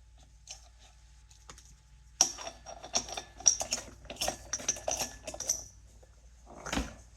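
Wrench tightening the flywheel nut on a BMW R69S engine: a run of quick metallic clicks and rattles for about three and a half seconds, then a single dull knock near the end.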